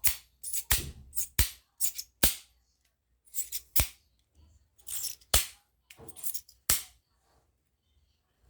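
Irregular sharp clicks and short rustles from plastic packaging and kit parts being handled during unboxing, with brief pauses between them.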